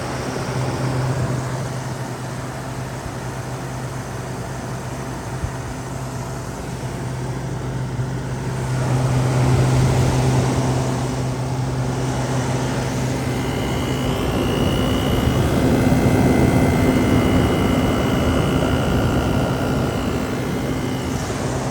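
Frigidaire window air conditioner running from its outdoor side, blowing hot air: a steady low hum under the rush of its fan. The fan rush swells about a third of the way in, and a faint high whine comes and goes in the second half.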